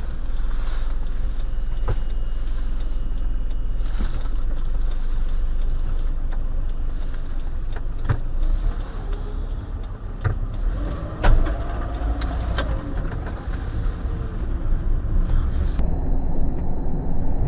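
Steady road and engine rumble heard from inside a moving car, with several short sharp knocks, the loudest a little past the middle. Near the end the sound cuts to a louder, rougher road rumble.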